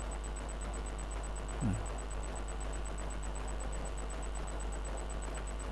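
Steady low electrical mains hum with a faint, high steady whine and hiss. A brief falling vocal sound comes about two seconds in.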